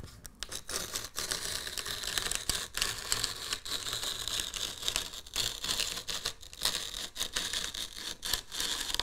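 Fine model-railway ballast grit trickling out of a clear plastic ballast dispenser as it is slid along the track, its bristles brushing over the sleepers. It makes a steady gritty hiss with small, uneven surges.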